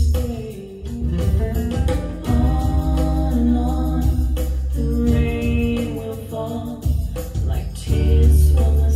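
A song playing: a female voice singing over guitar with a strong, deep bass line.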